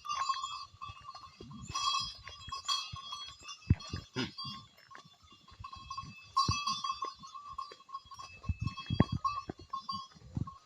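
Goats bleating repeatedly, with scattered knocks and thumps.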